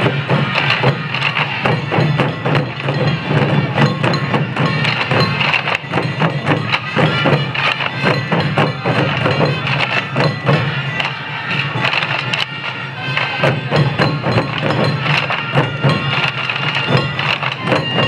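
Sansa odori taiko: a large group of barrel drums slung from the dancers' waists, beaten together in a fast festival rhythm with many strokes a second.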